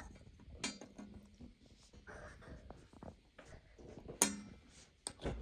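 Small hard plastic toy pieces being handled, with a few sharp clicks and taps as they knock against each other or a surface, the loudest about a second in and near the end, between soft rustling.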